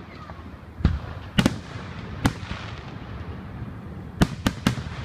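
Aerial fireworks going off: about six sharp bangs at uneven spacing, the last three in quick succession near the end, each followed by a short rumbling echo.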